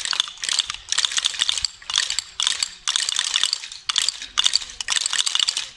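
Wooden Easter rattles (Ratschen and Klappern) cranked and clapped by a group, a dense wooden clatter coming in repeated bursts about every half second, stopping just before the end.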